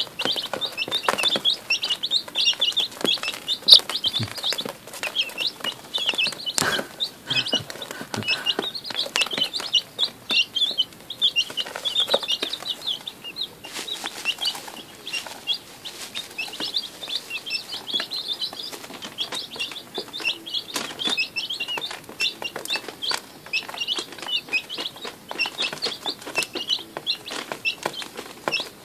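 A brood of day-old chicks peeping continuously, many short high chirps overlapping, with a sharp knock about four seconds in.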